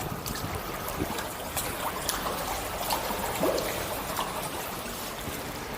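Water trickling and splashing around a paddled kayak, with scattered short splashes and drips from the paddle blades over a steady wash of water.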